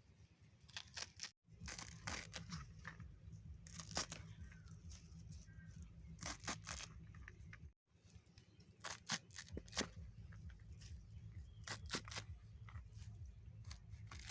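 Young ghatkol leaves being finely chopped with a blade: irregular crisp cutting strokes, often in quick clusters, over a low steady hum, broken twice by brief total dropouts.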